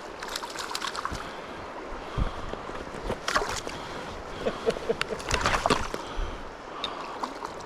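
Water splashing and sloshing in a creek, in two short bursts about three and five seconds in, over the steady run of the stream.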